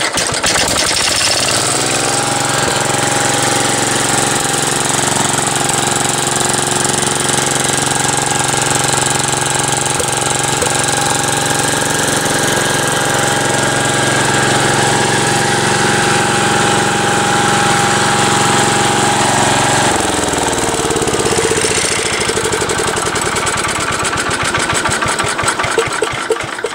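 Gravely Commercial 12 walk-behind tractor's engine running steadily through a new muffler, just after starting. It runs well, now that the leaking fuel system has been repaired. About two-thirds of the way through, the engine speed falls as it is throttled back toward idle.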